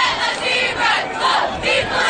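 Football crowd and sideline voices shouting and chanting together, in pulses about three times a second.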